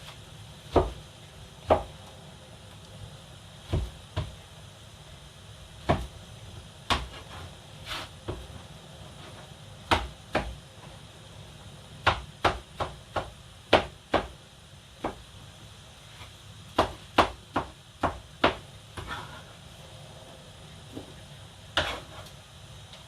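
Sharp kitchen knocks: a utensil striking a cutting board or pot, in uneven runs of separate strokes with short pauses between them.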